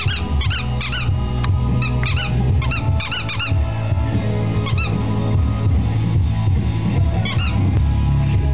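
A squeaky dog toy is squeezed by hand in quick bursts of two or three squeaks, each squeak rising and falling in pitch. The bursts come often in the first few seconds, then only once or twice more near the end. Music plays underneath.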